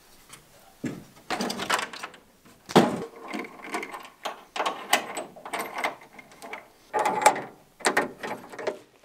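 Rear door latch handle of a 1954 Land Rover Series 1 worked by hand: a string of sharp metallic clanks and rattles of the old steel latch and door, starting about a second in.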